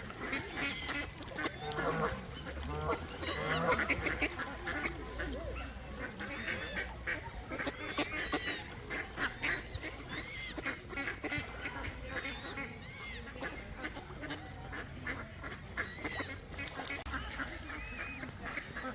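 A flock of ducks quacking, many short calls overlapping continuously.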